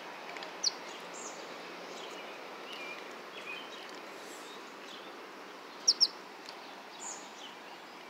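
Short, high sparrow chirps over a steady outdoor background hiss: a single chirp about a second in and a quick pair, the loudest, about six seconds in, with a few fainter ones between.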